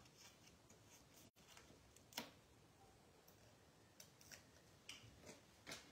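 Faint handling of foam dimensionals and cardstock: a handful of short, light crackles and ticks as the adhesive pieces are peeled from their backing sheet and pressed on. The loudest comes about two seconds in.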